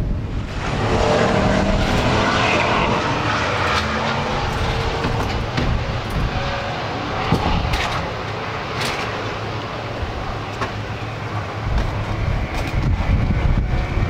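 A car engine running, loudest over the first few seconds and easing off over the next several, with a low rumble underneath.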